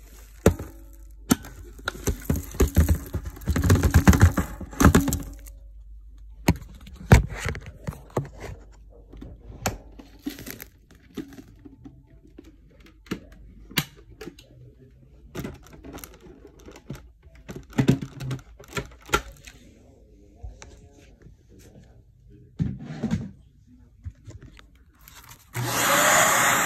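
Irregular crackles, crunches and clicks of dry crunchy material being handled, densest a couple of seconds in. Near the end a vacuum cleaner switches on and runs with a steady hiss.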